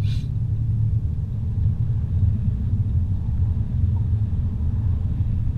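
Steady low rumble of a car driving along a highway, heard from inside the cabin.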